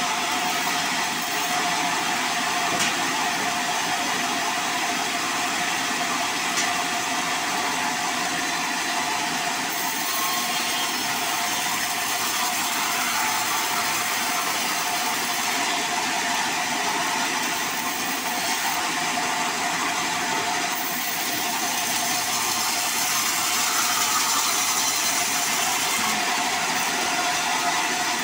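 Band sawmill running steadily while sawing a sonokeling (Indian rosewood) log into a plank, a constant whine over a steady rushing noise.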